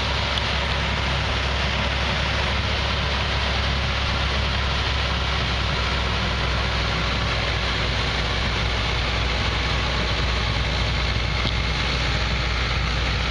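Combine harvester picking corn, its engine and the rear chopper that shreds the cobs and husks running with a loud, steady, even drone.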